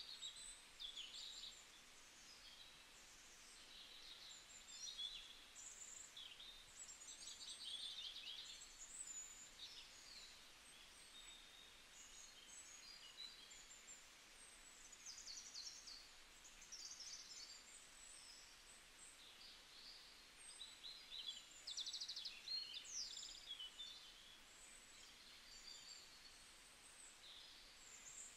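Faint chorus of small birds chirping and twittering over a soft steady hiss, a birdsong ambience track.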